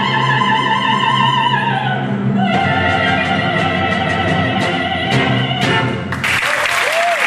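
Operatic soprano with a symphony orchestra singing the final bars of a Cuban zarzuela aria: a high note held with vibrato, then a lower held note over closing orchestral chords. Audience applause breaks out about six seconds in as the piece ends.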